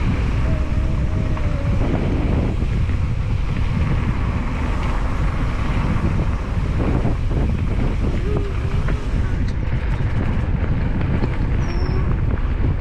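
Wind buffeting an action camera's microphone as an electric mountain bike rolls along a dirt trail, with the rumble of the tyres on the dirt and a few small knocks from the bike.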